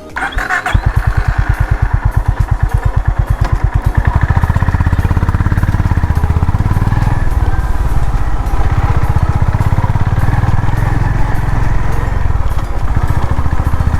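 Honda CB350RS's single-cylinder four-stroke engine starting after a brief crank and settling into an even, slow beat of firing pulses. About four seconds in, the revs rise and it runs faster and steadier.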